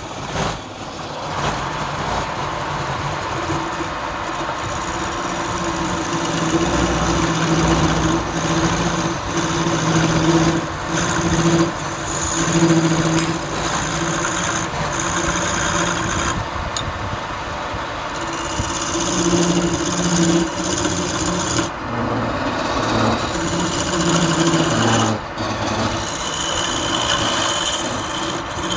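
A wood lathe running while a turning tool cuts a spinning workpiece: a continuous scraping over a motor hum that comes and goes and shifts in pitch.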